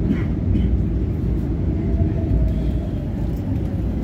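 Madrid Metro Serie 7000 train running, heard from inside the car: a steady low rumble as it slows alongside the platform, with a faint whine that falls slightly in pitch through the middle.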